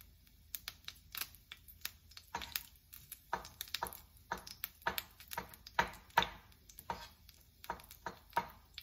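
Kitchen knife cutting on a chopping board: irregular sharp taps, about two to three a second.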